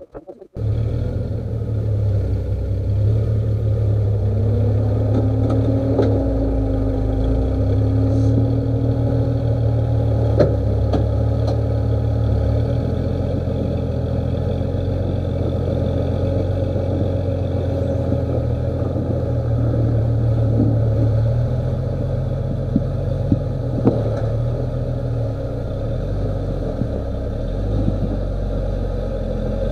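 Engine of a single-seat rock crawler buggy, a GM Ecotec four-cylinder, running steadily at low revs as it crawls, with a few sharp knocks. The engine sound comes in abruptly about half a second in.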